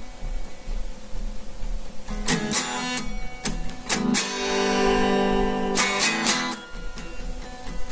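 Guitar strummed. A chord rings and dies away, then comes a few quick strums, a chord held for about two seconds, and more quick strums near the end.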